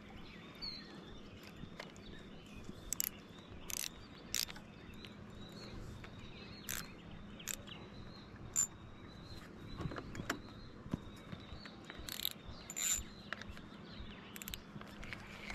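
Outdoor lake ambience: a low steady hum under scattered light clicks and taps at irregular intervals, with a few short bird chirps.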